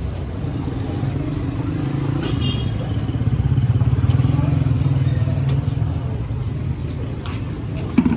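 Street traffic noise, mainly a vehicle engine running close by with a steady low rumble that grows louder from about three to five seconds in. A short knock comes near the end.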